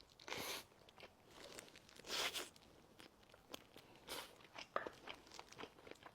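Close-miked mukbang eating sounds of a person biting into and chewing chicken: many small wet clicks, with three louder rustly, crunchy bursts about two seconds apart, the middle one the loudest.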